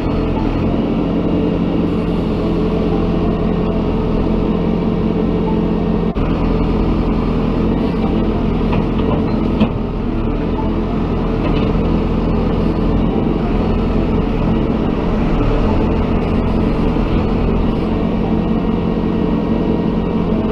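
Heavy machine's engine running steadily, with a brief drop in level about six seconds in.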